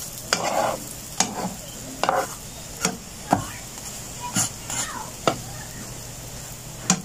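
Oatmeal pancakes sizzling in a nonstick frying pan. A plastic spatula repeatedly taps and scrapes against the pan as the pancakes are turned and shifted, making about nine sharp knocks.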